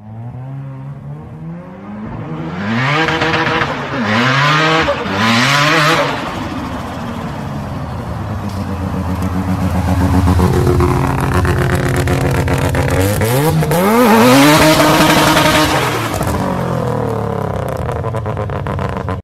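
Mazda RX-7 engine revving hard: three quick blips a few seconds in, then running steadily at higher revs, then a longer rev climbing and falling near the end as the car pulls away.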